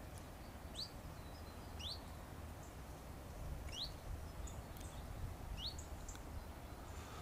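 A songbird giving short, quick, upward-sweeping chirps, four in all, a second or two apart, with fainter high chirps between, over a faint low rumble.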